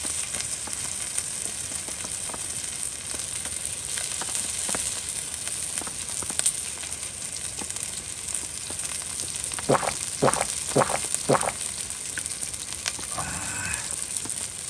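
Chicken neck meat sizzling on a griddle plate over a cartridge gas stove, a steady hiss. About ten seconds in come four quick gulps from drinking out of a can.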